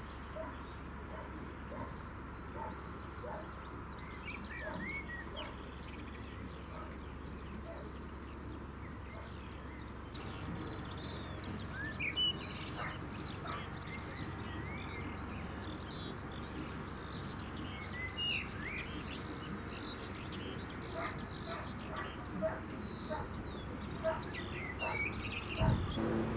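Birdsong from several small birds, many short chirps and whistles, over the low steady hum of the narrowboat's engine. A single low thump near the end.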